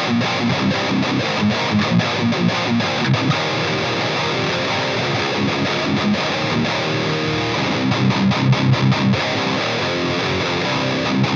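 Heavily distorted electric guitar in drop C tuning played through an EVH 5150 III LBX tube amp head on its high-gain sound: rhythmic, palm-muted low chugging riffs with chords in between.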